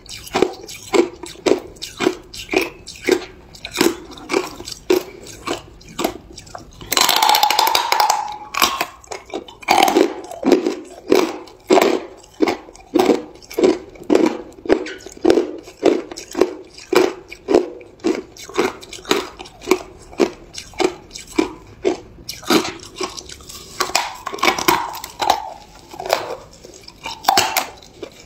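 Close-up chewing of hard ice chunks, a steady rhythm of crunches about two to three a second, with a longer, louder stretch of crunching about seven seconds in.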